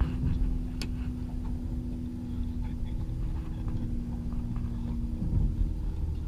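Wind on the microphone and water rushing along the hull of a small sailboat under sail, with a steady low hum running underneath and a few light clicks.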